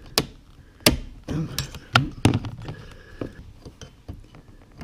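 Sharp clicks and knocks of a hand tool and metal fittings as a dishwasher water supply line is worked onto the inlet valve, four strong knocks within the first two and a half seconds, then lighter handling taps.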